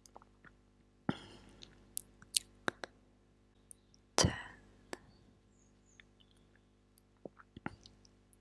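Close-miked ASMR clicks and taps at a small clip-on microphone held just below the mouth: scattered sharp clicks and short rubs, the loudest about four seconds in, over a low steady hum.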